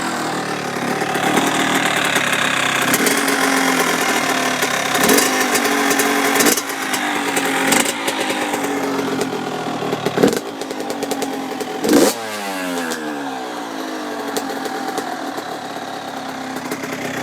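2003 Yamaha YZ85's single-cylinder two-stroke engine, fitted with an FMF Fatty expansion chamber and Power Core 2 silencer, running near idle. Its pitch drops as it settles at the start. A few short sharp blips or pops come between about five and twelve seconds in, and after the last one the revs fall back to idle.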